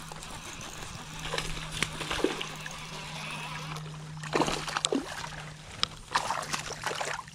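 Water sloshing and splashing against a plastic kayak hull, with a few short knocks and splashes from handling and casting. A steady low hum runs underneath and stops near the end.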